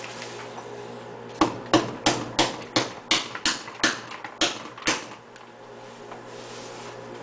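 A quick run of about eleven sharp knocks, roughly three a second, over a steady low hum.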